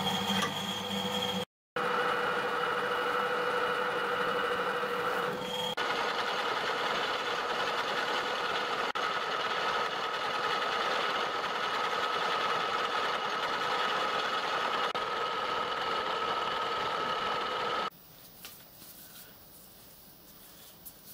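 Metal lathe running steadily with a held gear whine while turning down a steel axle bar; the sound stops abruptly near the end, leaving only faint clicks of metal parts being handled.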